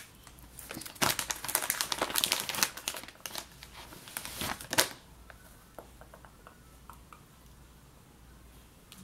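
Crinkling and rustling of a white tissue or makeup wipe being handled to take off lipstick, in two spells, the second shorter, followed by a few faint ticks.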